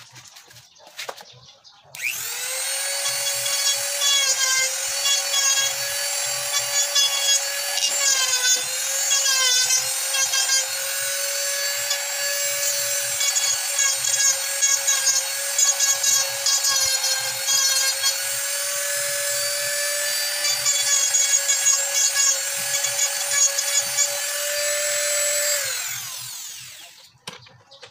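Electric angle grinder running against a hardwood ebony mug, grinding the wood. A steady high whine starts abruptly about two seconds in, dips in pitch a few times as the disc bites, and winds down after switch-off near the end.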